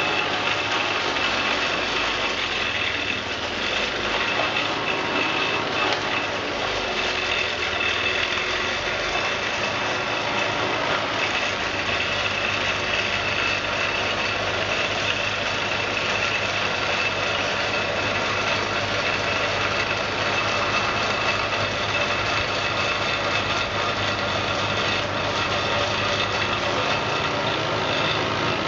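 Two-stage snowblower fitted with an aftermarket impeller kit, its engine running steadily under load as it clears and throws wet snow.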